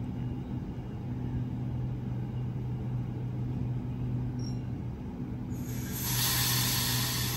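Sydney Trains double-deck electric train standing at the platform, its onboard equipment giving a steady low hum. About five and a half seconds in, a loud hiss of air starts and holds: the train's brakes releasing before it pulls away.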